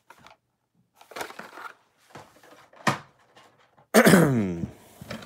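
Cardboard and plastic blister-card packaging being handled in a shipping case: a rustle, a sharp click, then a loud crackling scrape with a falling squeal as a carded car is dragged out about four seconds in.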